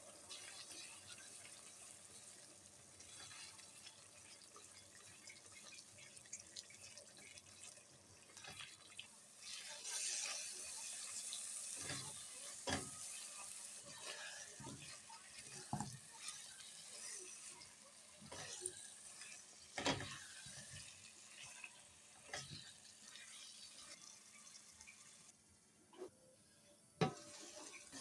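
Water running and splashing at a kitchen sink, with scattered knocks and clinks of kitchen utensils throughout.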